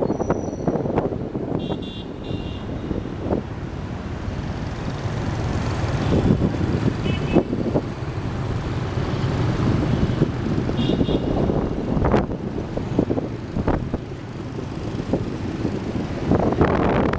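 Dense city traffic heard on the move: a steady rumble of motorbike and car engines and road noise, with short horn toots a few times, a pair about two seconds in, one near the middle and another pair a little later.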